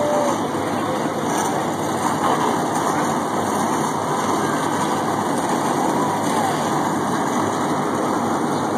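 A field of NASCAR stock cars' V8 engines running together just after being started, a loud, steady rumble.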